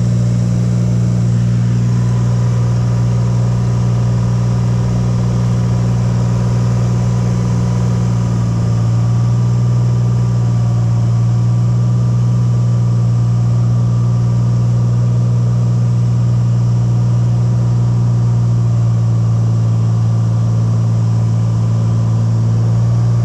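Cessna 182's single piston engine and propeller running steadily in cruise, a loud, even drone heard inside the cabin, growing slightly louder about nine seconds in.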